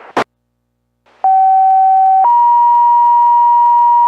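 Two-tone sequential fire pager alert received over a VHF low-band radio channel, being sent as a weekly pager test. A short squelch burst is followed by a moment of dead air and then radio hiss. Then a steady tone sounds for about a second and jumps to a higher steady tone that holds: the signal that sets off the fire department's pagers.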